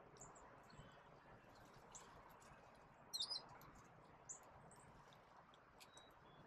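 Small songbirds chirping over near-silent outdoor quiet: a quick run of high chirps about three seconds in and a single chirp about a second later.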